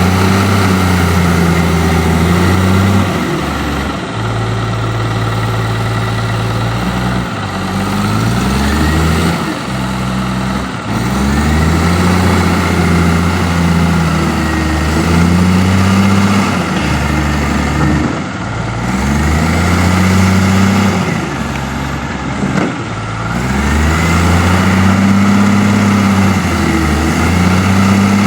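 Heavy diesel engine of an earth-moving machine working while loading logs, its pitch sagging under load and climbing back again every few seconds.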